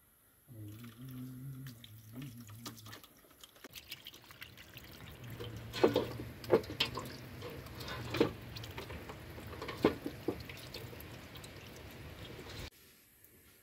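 Water running from the brass tap of a metal water drum onto a whole raw chicken as it is washed by hand, with several sharp wet slaps and splashes as the bird is turned under the stream. The sound stops abruptly near the end.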